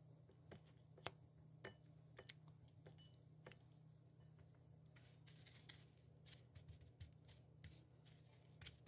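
Near silence: faint clicks, taps and small squishes of fingers handling egg-soaked bread in a glass bowl and pressing it into breadcrumbs, over a low steady hum.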